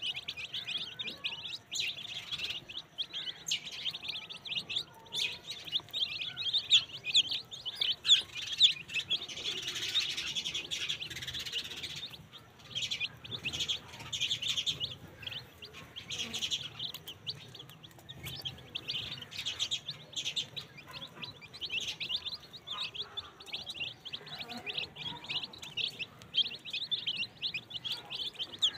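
A large flock of young chicks peeping constantly while they feed, many short high cheeps overlapping into a dense chorus.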